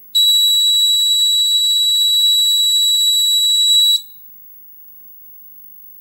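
Relay-switched alarm buzzer of a Hall effect sensor door alarm sounding one steady, high-pitched tone for about four seconds, then cutting off suddenly. The magnet moved away from the sensor sets the alarm off, and the magnet brought back in front of the sensor stops it.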